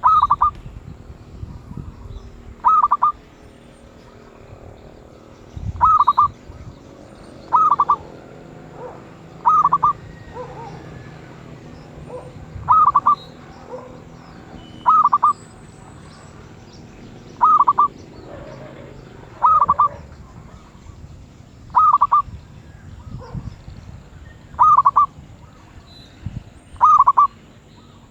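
Zebra dove (merbuk) cooing: a short, clipped call of a few quick notes, repeated about every two to three seconds. It is a medium-voiced bird ('suara sedang') in fanciers' grading.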